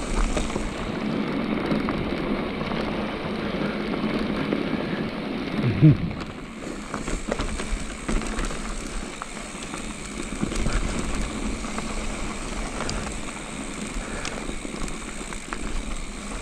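Electric mountain bike rolling downhill on a rocky dirt singletrack: steady tyre noise over dirt and stones, with frequent small clatters and knocks from the bike over the bumps. About six seconds in there is a short, louder pitched groan.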